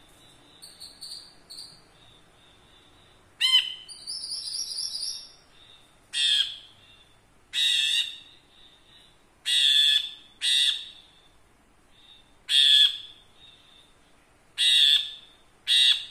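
Brinji kelabu bulbul singing: a few soft chirps, then a loud call with a quick run of rising notes. It then gives a string of loud, short calls repeated every one to two seconds.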